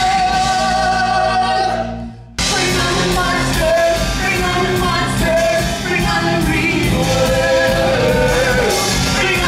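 Musical theatre cast singing an upbeat number with band accompaniment. A held sung note fades out about two seconds in, and the song then snaps straight back in.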